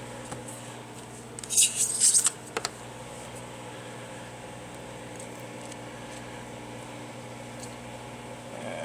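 Microwave oven running with a steady hum. About one and a half seconds in, a short scratchy scraping lasts about a second and is the loudest sound.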